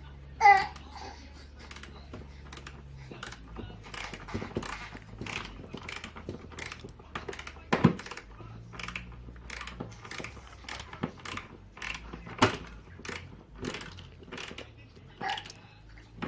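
Hand screwdriver turning a hinge screw back into a kitchen cupboard, giving a run of small irregular clicks and creaks, about two or three a second. About half a second in comes a brief high-pitched vocal cry, the loudest sound, with a weaker one near the end.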